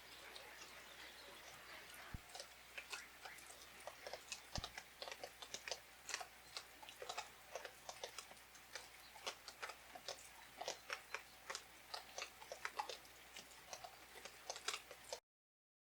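Quiet, irregular small crackles and clicks, many per second, starting about two seconds in and stopping abruptly near the end.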